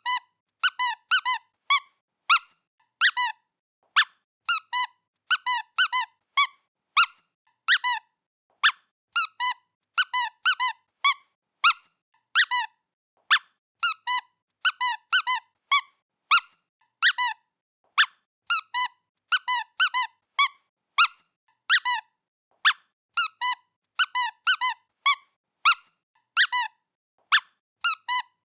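A squeaky pet toy squeaked over and over in short, high squeaks, often in quick pairs or threes, about two a second, with silence between them.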